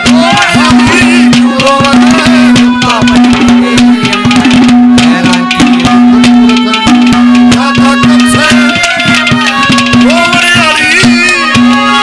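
Live Haryanvi ragni folk music between sung verses: a fast hand-drum rhythm over a steady held drone note, with a wavering melody line above it.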